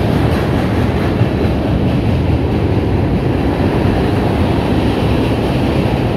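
A freight train's cars rolling steadily across a steel truss railroad bridge, their wheels making a continuous rumble.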